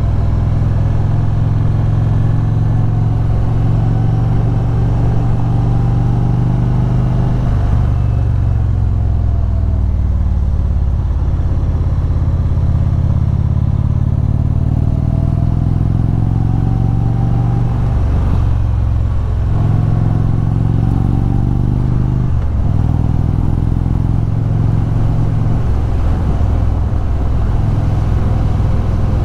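Indian cruiser motorcycle's V-twin engine under way, with wind noise. Its pitch falls and climbs several times as the rider slows for curves and accelerates out of them.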